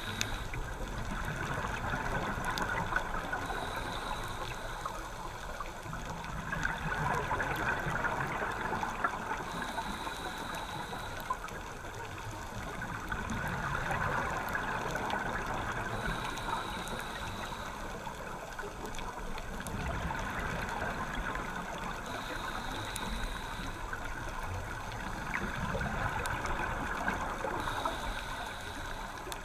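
Scuba diver breathing through a regulator, heard underwater: a hissing inhale through the demand valve, then a gurgling rush of exhaled bubbles, about once every six seconds, five breaths in all.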